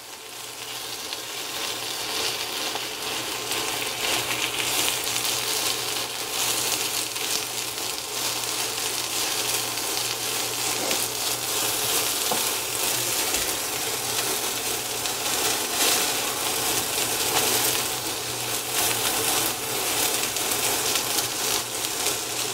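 Pita bread and chicken pieces sizzling in a skillet with olive oil, garlic, salt and pepper, a steady crackling frying sound that builds over the first couple of seconds and then holds. A steady low hum runs underneath.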